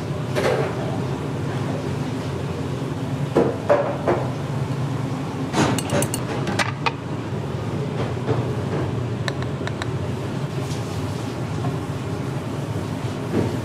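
Metal ladles clinking against stainless steel pans and ceramic ramen bowls as sauce and oil are ladled out: a few sharp clinks, in small groups about a third of the way in, around the middle and a little later, over a steady low hum.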